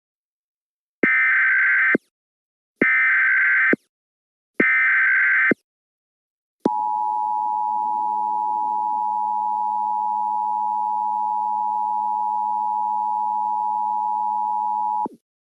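Emergency Alert System opening: three short bursts of screechy digital SAME header data, each about a second long, followed by the steady two-tone EAS attention signal held for about eight seconds before it cuts off. It announces an emergency alert broadcast.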